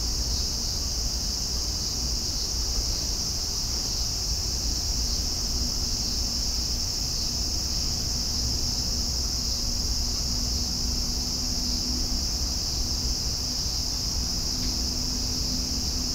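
Insects trilling in a steady, unbroken high-pitched chorus, over a low outdoor rumble.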